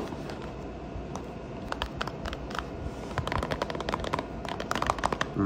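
Cardboard and plastic packaging of small blind boxes being handled and opened: a sharp click at the start, then quick runs of small crinkles and clicks, busiest in the second half.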